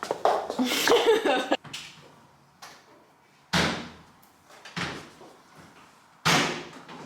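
Hard-soled Gucci loafers clacking: a quick burst of clattering, then three separate sharp clacks about a second and a half apart.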